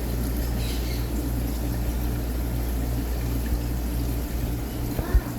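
Aquarium water pumps and filtration running, with water trickling and a low hum that pulses about twice a second. A single short thump near the end.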